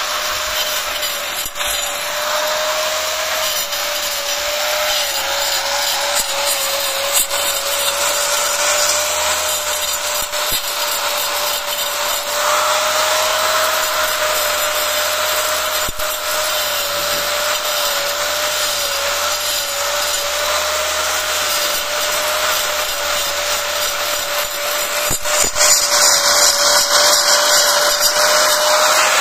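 Angle grinder running continuously as its disc cuts grooves along a row of red clay bricks: a steady, slightly wavering whine over a dense grinding noise. It gets louder about three seconds before the end.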